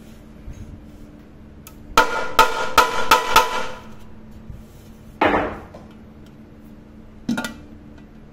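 Hammer striking a rivet set to head over a rivet fixing the handle bracket on a metal pressure cooker body: a quick run of about five ringing metallic blows, then two single blows a few seconds apart, the pan ringing briefly after each.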